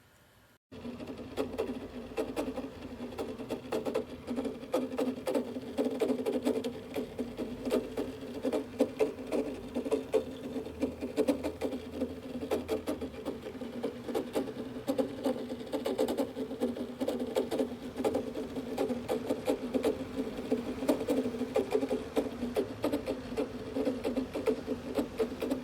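Humidifier running with a dense, irregular crackling patter that starts abruptly about a second in.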